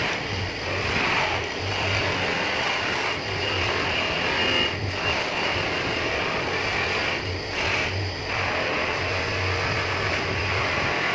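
Electric polishing motor running steadily with a hum, its buffing wheel making a rushing hiss against an aluminium motorbike wheel hub. The hiss drops away briefly several times as the hub is lifted off and turned to a new spot.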